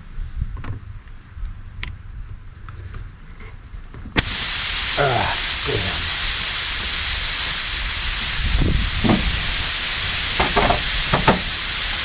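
Air hissing out of an RV trailer tire through a nail hole, starting suddenly about four seconds in and running steadily, loud, with a few short squeaks over it: the tire losing pressure once the nail is pulled.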